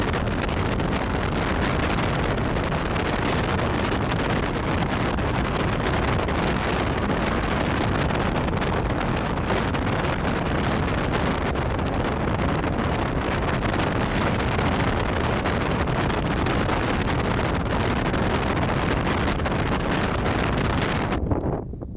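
Steady, even rushing of wind buffeting the microphone, changing abruptly near the end at an edit cut.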